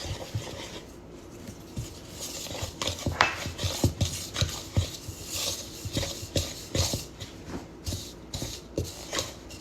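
A utensil knocking and scraping in a mixing bowl as flour is stirred into a cookie dough, with irregular knocks about twice a second starting about a second in.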